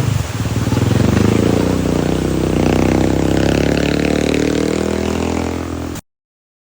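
A motor vehicle engine running with a steady hum that rises slightly in pitch early on. It cuts off suddenly about six seconds in.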